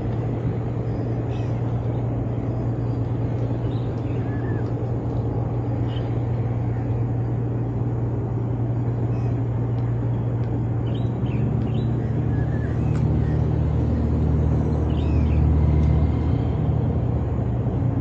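Steady low engine drone, with a second, deeper engine joining about eleven seconds in and growing louder before easing off near the end. Short bird chirps come and go over it.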